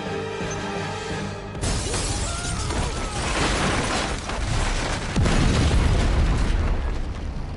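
Trailer music with a held tone, cut by a sudden film explosion about a second and a half in, with debris crashing. A second, heavier blast about five seconds in dies away near the end.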